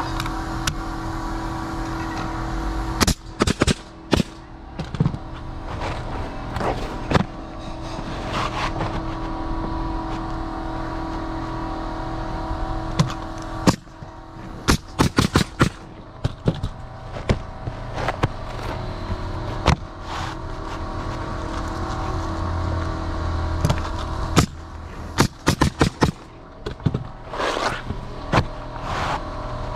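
DeWalt roofing nailer firing into asphalt shingles in quick bursts of sharp shots, several runs of them spread through, over a steady mechanical hum.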